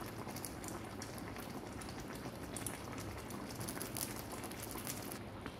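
Pot of chicken adobo boiling on a gas stove: a steady bubbling with many small pops.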